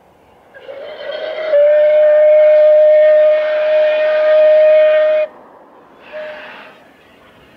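Whistle of Battle of Britain class light Pacific steam locomotive No. 34067 Tangmere: one long, loud blast of about four and a half seconds that slides up briefly at the start, then holds one steady pitch and cuts off sharply, followed about a second later by a short toot.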